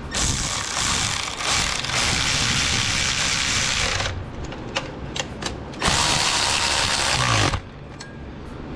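Ratchet wrench clicking in quick runs while a nut on the transmission shift linkage is run down. A long spell of about four seconds comes first, then a few single clicks, then a shorter spell near the end.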